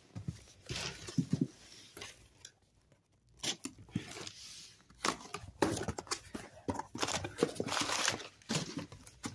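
Corrugated cardboard shipping box being handled and opened: irregular scrapes and rips of its packing tape, a short pause, then the flap folded back and a paper packing slip rustling.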